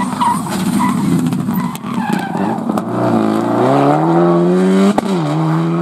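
A Subaru Impreza WRX STI rally car's turbocharged flat-four engine. The tyres scrabble through a dusty bend at first, then the engine accelerates hard with a steadily rising note. About five seconds in, a sharp crack comes as it shifts up, and the engine note drops and holds.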